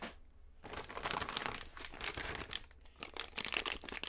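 Clear plastic parts bag crinkling as hands handle it and draw parts out. It starts after a short quiet moment and goes on unevenly.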